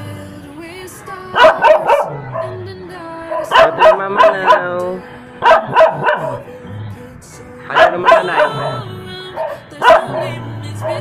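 A dog barking repeatedly, in clusters of two to four sharp barks every second or two, over background pop music.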